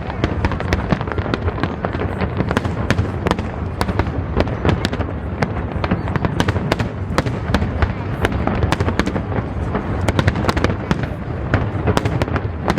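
Aerial fireworks display: a dense, unbroken barrage of crackling and bangs, many bursts a second over a continuous low rumble.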